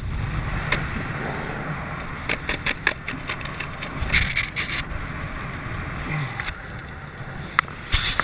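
Wind rushing over a skydiver's camera microphone under an open ram-air parachute canopy, a steady rush with a few brief flaps and clicks scattered through it.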